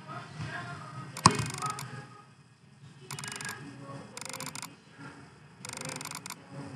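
Computer mouse being operated: one sharp click about a second in, then several short bursts of rapid ticking.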